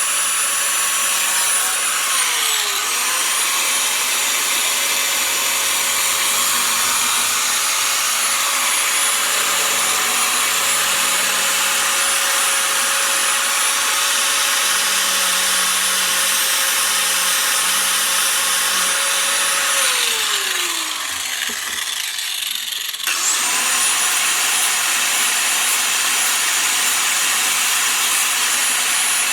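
Angle grinder with a flap disc running at full speed and grinding fibreglass, a steady high whine over a gritty rasp. Its pitch sags briefly a few seconds in. About two-thirds of the way through it winds down and goes quieter, then is switched back on and spins straight up to speed.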